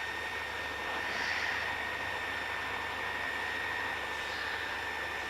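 Cessna 150's four-cylinder Continental O-200 engine running steadily at taxi power, heard from inside the cabin as an even hiss with a thin high whine.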